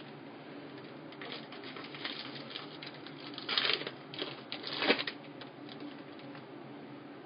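A pack of trading cards being handled and opened: a run of crinkles and clicks, loudest about three and a half and five seconds in.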